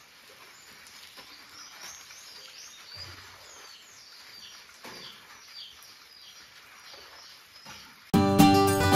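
Birds chirping outdoors, many short high calls repeating over a quiet background. About eight seconds in, acoustic guitar music cuts in suddenly and much louder.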